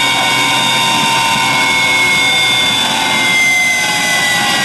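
Large-scale electric RC Bell AH-1Z Viper helicopter with an Align 850MX motor, on the ground with its four-blade main rotor and tail rotor turning: a steady motor and gear whine over rotor rush, the whine slowly falling in pitch as the rotors wind down.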